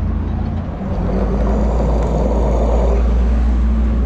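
A steady low rumble with a noisy hiss above it, growing a little stronger about a second in and easing off near the end.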